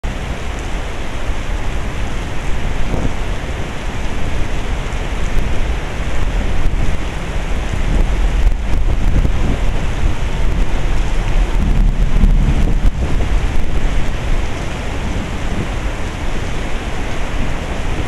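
Torrential typhoon rain pouring down steadily, with gusting wind rumbling on the microphone that swells twice in the middle.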